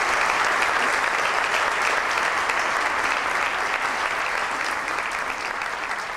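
An audience applauding, a dense crowd of hand claps that slowly dies down.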